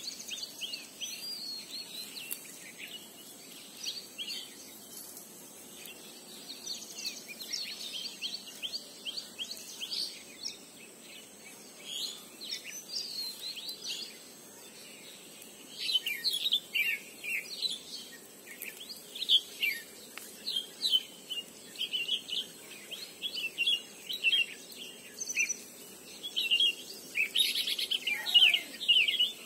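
Many small birds chirping and calling, busier and louder from about halfway through.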